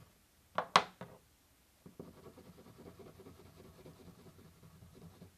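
A quick cluster of sharp clicks a little over half a second in, the loudest sound here, then the soft, steady scratching of a wax crayon rubbed back and forth on paper.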